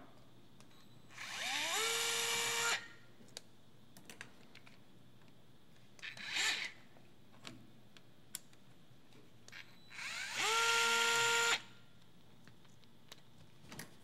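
Handheld electric screwdriver running twice, each time winding up in pitch and then spinning steadily for about a second and a half, as it backs screws out of an IBM Selectric III typewriter's mechanism. Between the two runs comes a short scrape and a few light metal clicks.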